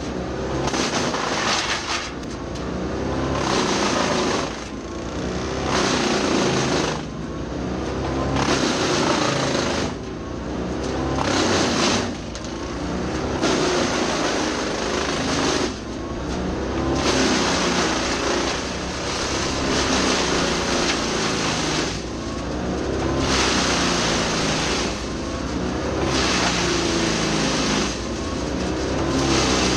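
PTO-driven Badger 8 PTOXL 8-inch wood chipper chipping eucalyptus, powered by a tractor. Over a steady low running hum, loud chipping noise surges every one to two seconds as pieces are fed in, with short dips between them.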